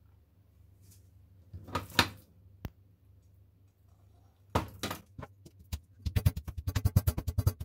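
A few scattered knocks and one sharp click of kitchen work. About six seconds in, electronic music with a fast, even beat starts.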